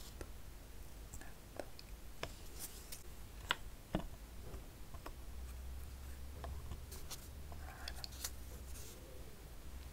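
Close, soft taps, clicks and scrapes of a wooden spatula working a thick chocolate mask in its jar, with two sharper clicks about three and a half seconds in and half a second later.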